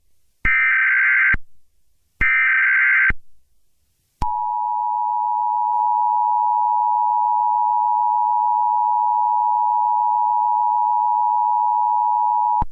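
Emergency Alert System tones. First come two short digital SAME header bursts, each about a second long with a short gap between, the last of a set of three. After a gap of about a second, the steady two-tone EAS attention signal (853 and 960 Hz together) holds for about eight and a half seconds and then cuts off.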